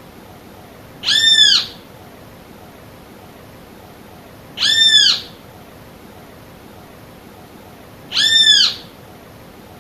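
Great kiskadee (bem-te-vi) calling: three short arched notes, each about half a second long and evenly spaced about three and a half seconds apart.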